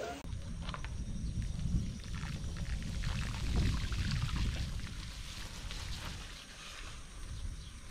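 Low wind rumble on the camera microphone with the tyre noise of a bicycle riding over a wet, muddy dirt road.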